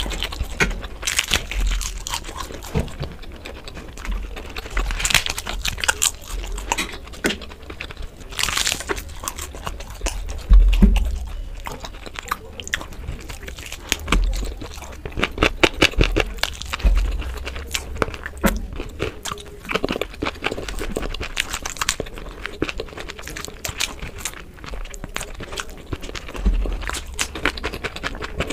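Close-up eating sounds: a crisp papad being broken and crunched, mixed with wet chewing of rice and curry, in many irregular sharp crunches throughout.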